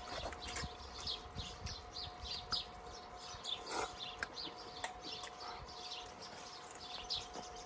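Small birds chirping: many short, high chirps repeating in quick succession.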